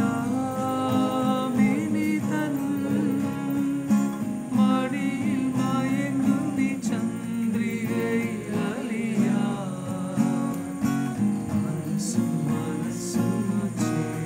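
A man singing and accompanying himself on an acoustic guitar.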